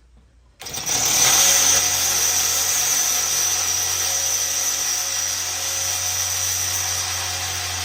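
Power drill boring through the Weber Smoky Mountain's steel lid with a 3/16-inch bit, enlarging a pilot hole. It starts about half a second in and runs at a steady speed with a high whine.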